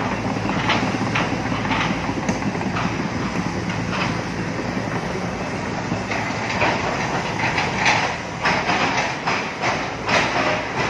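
Tracked excavator travelling: its diesel engine running steadily under the clank and rattle of its steel tracks, the clanks coming thicker from about halfway through.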